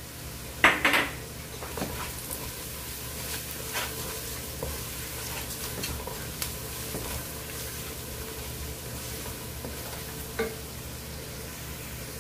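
A wooden spoon stirring and scraping onions, bell pepper and ground spices frying in oil in a nonstick pot, with a steady sizzle. Two sharp knocks come about a second in, and another near the end.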